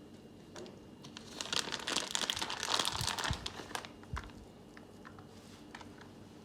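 A plastic packet crinkling and rustling for about two and a half seconds, with a couple of dull knocks, as cheese is shaken out of its bag onto the macaroni.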